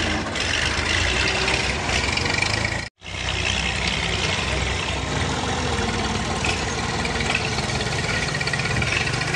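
Tractor diesel engine running steadily, with a momentary drop-out about three seconds in.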